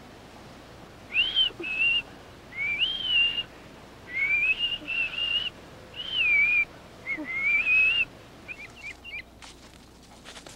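Whistling: a series of short phrases of one clear tone, each sliding up and then holding. A few quick chirps follow near the end, then rustling and crackling in brush.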